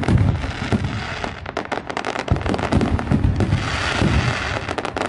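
Aerial fireworks bursting, with a dense, rapid crackle of many small pops over repeated low booms. A hissing sizzle rises briefly about three and a half seconds in.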